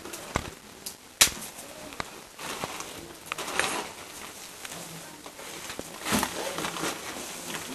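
Pastry shop room sound: a few sharp clicks and knocks in the first two seconds over a steady background hiss, then a busier stretch of clatter and faint voices near the end.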